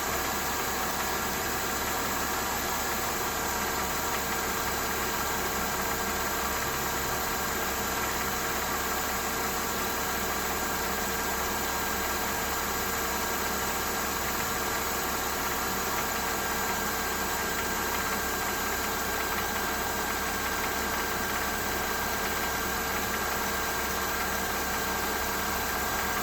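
Mercedes-Benz M272 3.5-litre V6 idling steadily, with the ticking, knocking noise whose source the owner is trying to find.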